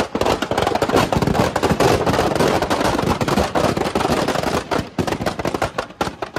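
Rapid, continuous crackling and banging of the firecrackers packed into a burning Ravana effigy as they go off. The bangs thin out near the end.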